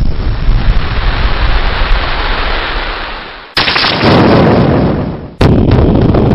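Three thunderclaps, each starting with a sudden loud crack and then rolling on as a rumble that fades. The first comes at the start, the second about three and a half seconds in, and the third about five and a half seconds in.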